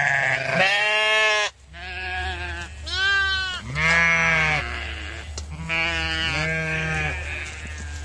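Sheep bleating, about seven calls of differing pitch one after another, with short gaps between them, over a steady low rumble.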